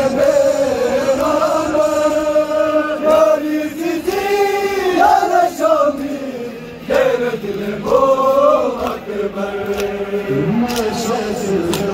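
Male voices chanting a noha, a Shia mourning lament, over a hand-held microphone, with a group of mourners chanting the lines along in unison. The chant is sung in long, held lines, with a short break about two-thirds of the way through.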